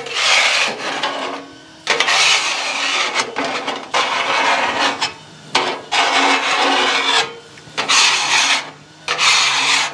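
Metal bench scraper dragged across the steel cooktop of a Blackstone tabletop griddle. It makes several scraping strokes, each about one to two seconds long with short breaks between, as it clears leftover grease and food residue after cooking.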